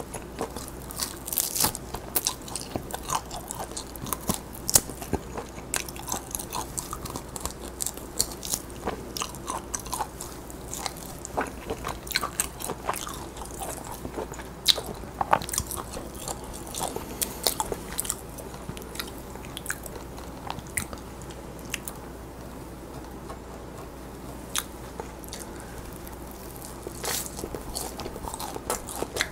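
Close-miked chewing and biting of charred roast lamb: irregular crisp crunches and clicks of the mouth, easing into a quieter stretch of chewing about two-thirds of the way through.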